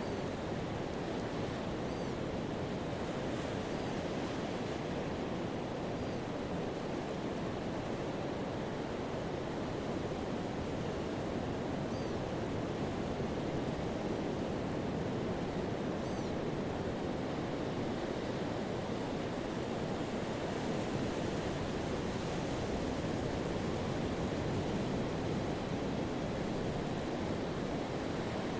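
Pacific surf washing onto a sandy beach: a steady, continuous wash of waves and foam, swelling gently without sharp breaks. A few faint, short, high chirps sound now and then.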